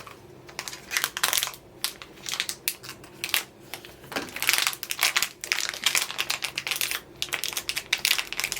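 Small cardboard mystery pin box being opened by hand and its packaging handled: rapid, irregular clicks, scrapes and crinkles.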